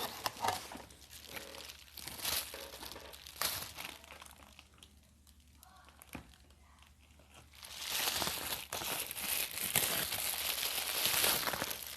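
Packaging being handled and unwrapped, crinkling and rustling with some tearing. It quiets down midway, then grows louder and denser for the last few seconds.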